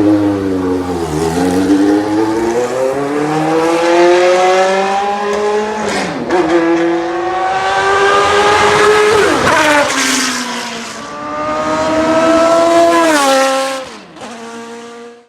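Ford Cosworth V8 of a Benetton B190 Formula 1 car being revved: the engine pitch climbs and drops back sharply three times. It then settles to a lower, steady idle near the end and cuts off abruptly.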